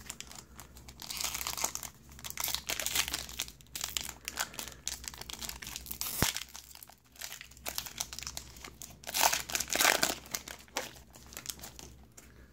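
Shiny foil wrapper of a Topps WWE SummerSlam 2019 trading card pack crinkling in the hands as it is opened, in irregular bursts, with a single sharp click about halfway through.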